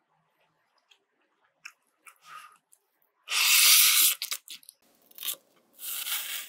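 Close-miked food sounds: scattered light clicks and taps, then a loud crunchy rush lasting under a second about three seconds in. Near the end comes the crunch of a knife slicing through a green onion on a wooden board.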